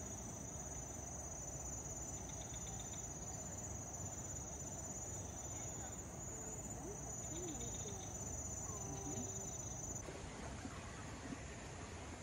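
Insects trilling in a steady, high-pitched chorus, with a few faint short chirps in the middle. The trill cuts off about ten seconds in, leaving only a faint outdoor hiss.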